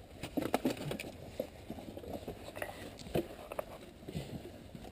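Scattered light clicks and knocks, handling noises.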